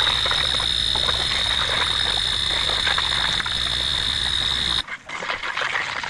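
Pressurized flush forced through a refrigerator's refrigeration line and out of a discharge tube into a cup of liquid, hissing steadily and bubbling with a crackling gurgle as it drives out the oil and dirt clogging the system. About five seconds in, the hiss cuts off sharply and only fainter bubbling remains.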